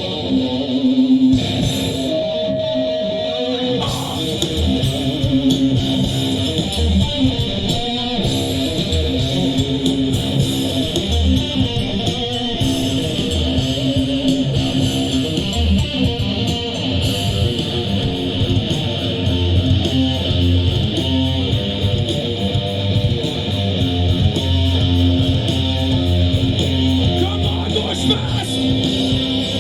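Live rock band playing an instrumental passage: amplified electric guitar strumming over bass guitar with a steady beat.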